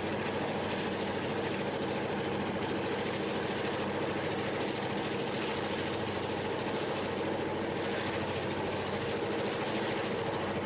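EMD GP-series diesel-electric locomotive's two-stroke diesel engine running steadily at full throttle in notch 8 while pushing a train as a helper: a dense, even engine drone with no let-up.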